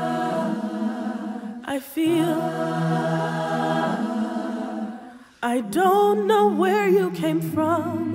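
A mixed teenage choir singing held wordless chords a cappella, with a short break about two seconds in. About five seconds in the chord drops away, then a single voice with wide vibrato sings a wavering melody over a held low note.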